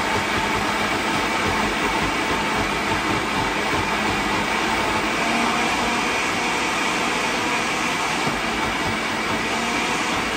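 Countertop blender running steadily on low speed, puréeing basil and oil into pesto.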